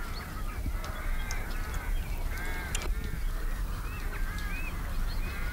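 Birds calling: a string of short calls repeated one after another, over a steady low rumble.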